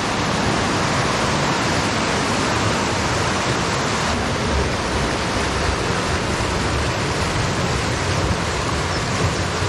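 East Lyn River white water running over rocks: a loud, steady rush of water.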